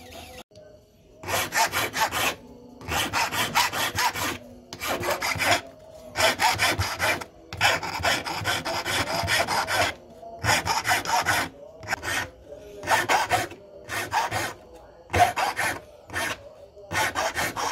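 Hand file rasping across a metal ring in quick back-and-forth strokes, grouped in bursts of about a second with short pauses between.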